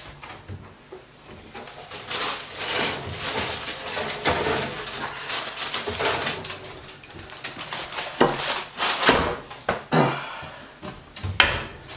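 Kitchen handling noise as an oven is opened and a hot foil-wrapped dish is lifted out: rustling and clatter, then several sharp knocks in the last few seconds as the dish is set down on a metal trivet.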